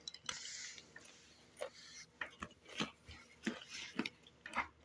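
A paperback book being handled and opened: a soft rustle of paper near the start, then scattered light clicks and ticks as the pages are leafed through.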